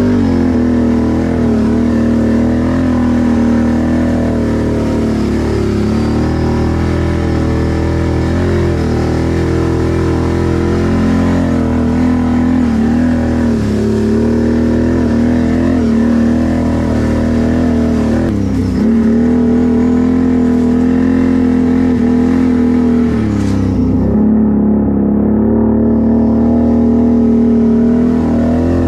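Can-Am 1000R ATV's V-twin engine running hard at steady high revs, its pitch dipping briefly about four times as the throttle eases and picks up again.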